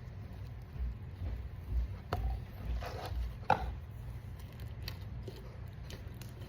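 Handling noises: a run of soft low thuds, then a few sharp clicks and knocks, the loudest about three and a half seconds in.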